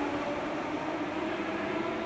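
Berlin S-Bahn class 480 electric multiple unit pulling out of the station past the platform: a steady running and wheel noise with faint whining tones.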